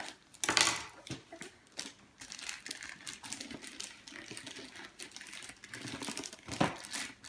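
Gift wrapping paper crinkling and rustling in irregular crackles as a wrapped present is handled and unwrapped, with sharper louder crackles about half a second in and again near the end.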